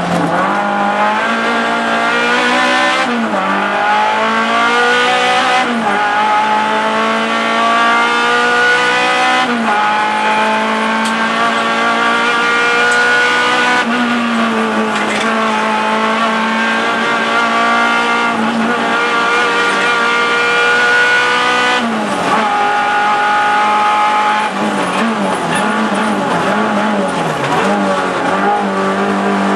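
Renault Clio Sport's engine driven hard, heard from inside the cabin. The pitch climbs as it revs up and drops sharply at each gear change, again and again, and wavers with throttle lifts and downshifts through the bends near the end.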